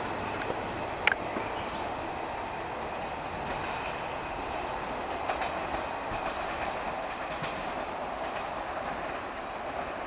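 Yellow electric multiple-unit train pulling away along the track, with a steady running rumble that slowly fades as it recedes. A sharp click about a second in.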